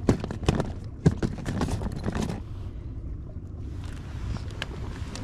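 A quick run of knocks and clicks from fishing tackle being handled in a boat while the hook is baited, over the first two and a half seconds, then a steady hiss of wind.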